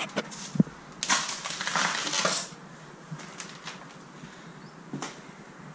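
Footsteps and handling noise in a wrecked locomotive cab: a sharp knock near the start, then a scraping, crunching rustle for about a second and a half, followed by scattered light clicks and ticks.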